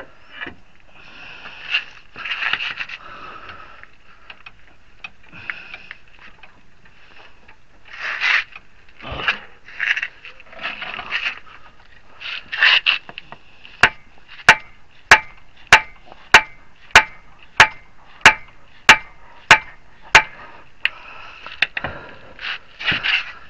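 Scraping and handling of tools and parts, then a steady run of about eleven sharp hammer blows, roughly one every 0.6 seconds, driving a Honda Fit CV axle's splined inner end into the transmission to seat it.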